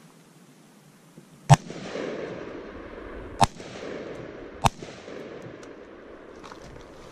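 Three rifle shots from an AR-15 fitted with a Radical Firearms RF-15 upper in 5.56 NATO, the first the loudest, spaced about two seconds and then just over a second apart. Each crack is followed by a rolling echo that hangs on between shots.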